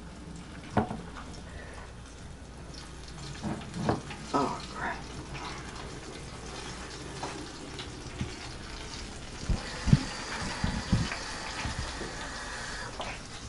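A few sharp knocks and clatters of things handled on a kitchen counter, then a kitchen tap running into the sink for the last few seconds, with a few dull thumps as it starts.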